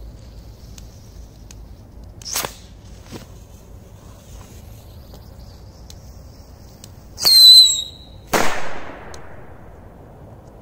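Firecrackers going off: a sharp bang about two seconds in, then the loudest burst a few seconds later, a bang with a shrill whistle that dips slightly in pitch. A second after it comes another loud bang with a long echoing tail.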